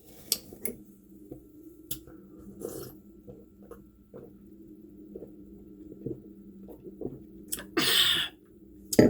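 A person eating: faint chewing and small scattered clicks, then a loud breathy, hissing burst lasting about half a second near the end and a sharp click just after it.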